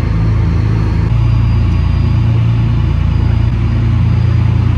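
Car ferry's engine running with a steady low drone.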